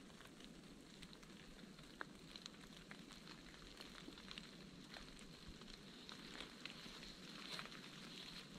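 Faint ambience of a wet forest: a soft hiss scattered with small ticks and crackles, like drips and light steps on soaked undergrowth. A faint, steady high tone runs underneath and strengthens a little near the end.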